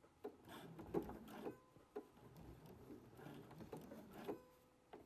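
Domestic sewing machine slowly stitching through thick layers of denim, making an uneven series of soft knocks and clicks, about two a second at first and then fewer.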